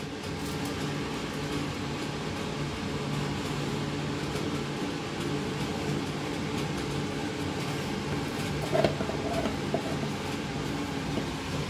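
Steady low hum of a running fan throughout, with faint sounds of thick cake batter being poured and pushed out of a plastic bowl with a spatula. A short scrape stands out about nine seconds in.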